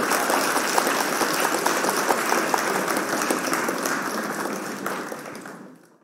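Crowd applause, dense clapping that fades out near the end.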